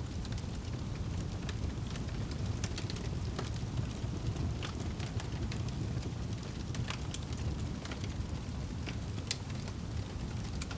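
Wood fire crackling in a fireplace: irregular sharp snaps and pops over a steady low rumble of the flames.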